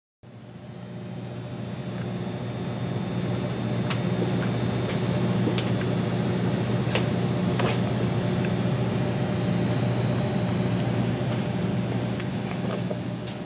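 Steady low mechanical hum, like a fan or appliance running, with a few faint ticks. It fades in just after the start and eases off near the end.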